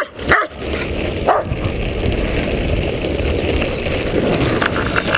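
Longboard's urethane wheels rolling on asphalt, a steady rolling rumble as the board passes close to the ground-level camera, with two short sharp sounds about a second apart near the start.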